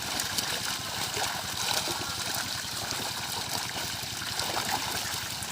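Water trickling and splashing steadily, with many small crackles.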